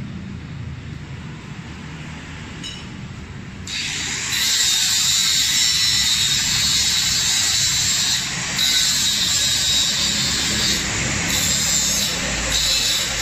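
Compressed air hissing loudly from a blow nozzle onto freshly welded aluminium on a motorcycle engine case. The hiss starts about four seconds in and runs with a few short breaks.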